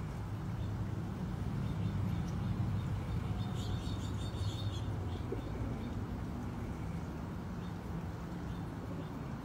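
A steady low rumble of outdoor background noise. A brief burst of high, thin bird chirps comes about three and a half seconds in.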